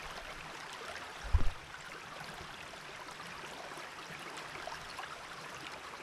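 Fast, shallow river water flowing and rippling past, a steady rush. About a second and a half in there is one brief, loud, low thump.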